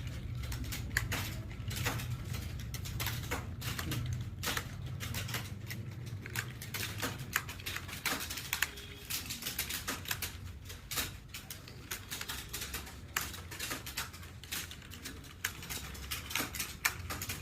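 Fast, continuous typing on a keyboard: rapid, irregular key clicks with a steady low hum underneath.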